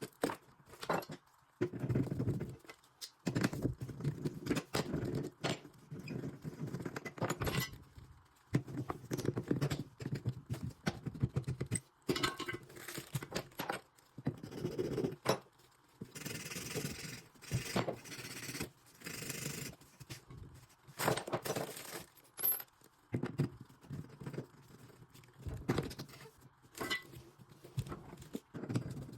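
Metal hand tools and plumbing fittings clinking and scraping in irregular bursts while a 1/2-inch compression angle stop valve is removed and fitted, with a couple of longer scraping or hissing stretches about two-thirds of the way through.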